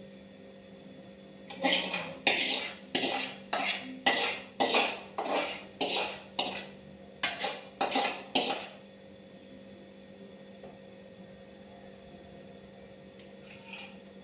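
A metal utensil clinking and scraping against a cooking pot, about a dozen strokes at roughly two a second, then stopping.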